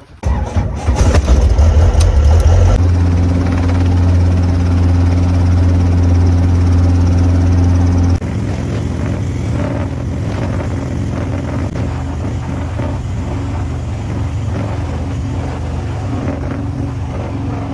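Loud, continuous engine noise that changes abruptly about 3 s and 8 s in: a steady low hum in the middle, then a rougher, noisier running sound.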